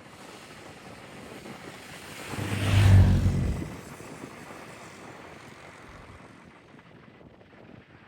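A low-flying aircraft passes close by, rising quickly to a loud peak about three seconds in and fading away within a second or so, over a steady wind-like hiss.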